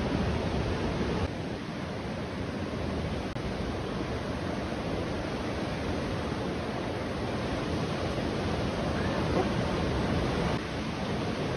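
Ocean surf breaking along a beach under stormy wind, a steady rushing wash of noise heard from high above the shore.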